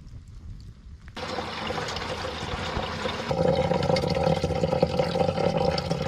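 Water running or pouring. It starts suddenly about a second in and grows louder with a steadier ring about halfway through.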